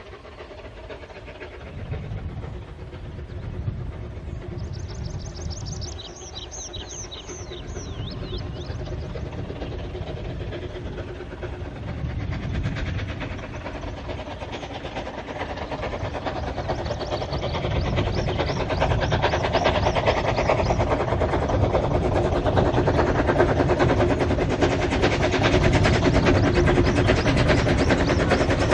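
Double Fairlie narrow-gauge steam locomotive approaching with its train, the chuffing and rail noise growing steadily louder until about halfway through, then staying loud. A bird sings briefly about five seconds in.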